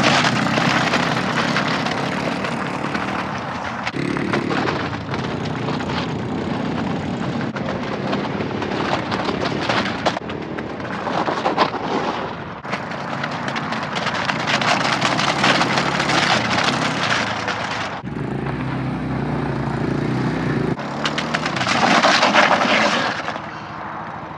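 Small 125cc four-wheeler running over aluminium cans on a road, its engine noise mixed with dense crackling and crunching as the cans are crushed. The sound shifts abruptly several times.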